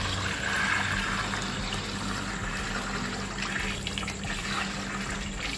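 Lemon juice pouring in a steady stream, over a steady low hum.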